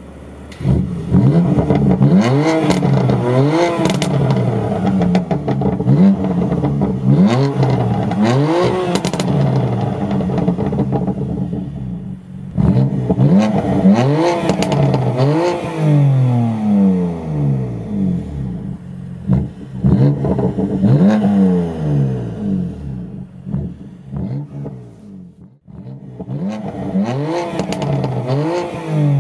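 BMW M3 F80 Competition's twin-turbo inline-six exhaust, the engine revved up and let fall back again and again, with sharp cracks and pops from the exhaust among the revs. The sound drops away briefly about 25 seconds in, then the revving picks up again.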